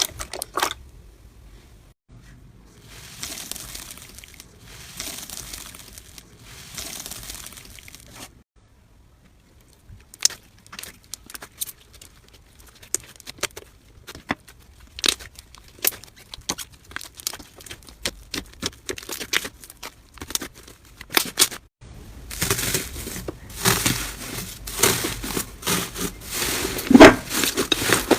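Hands playing with slime: sticky clicks and crackles, with a soft rustling stretch early on and a brief silence. The clicks come sparsely at first and then run together into dense, louder crackling near the end.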